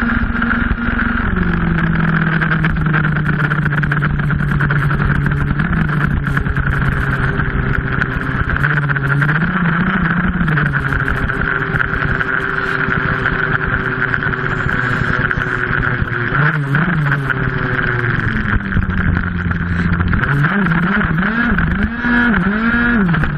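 Tuned two-stroke racing scooter engine heard onboard at racing revs. The pitch drops about a second in as it slows for a corner and then holds at mid revs. Near the end it rises and falls several times as the rider gets back on the throttle, climbing back to about 14,000 rpm.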